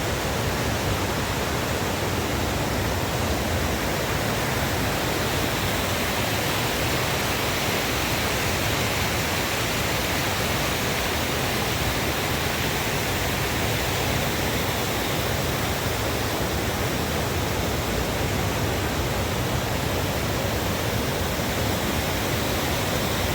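Rain-swollen river rushing heavily over stones: a steady, unbroken rush of water.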